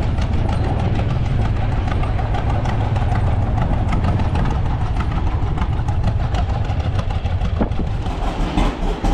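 Farm tractor engine running steadily with a low drone, mixed with a fast mechanical rattle from machinery working alongside it.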